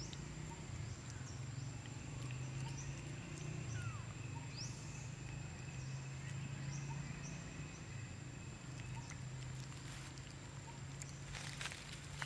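Forest ambience: a steady low hum and a thin, steady high-pitched tone, with a few faint short bird chirps. Near the end comes a brief rustle of dry leaves as a long-tailed macaque walks across the leaf litter.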